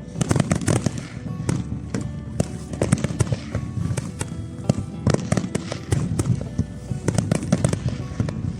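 Fireworks bursting and crackling in rapid, irregular succession, with many sharp bangs, over music.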